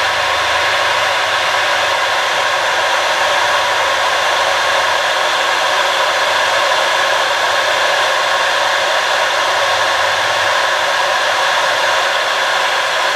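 Handheld electric drill running steadily at speed, spinning a short aluminum arrow-shaft tube in its chuck while a mill bastard file rasps against the turning end to square it off.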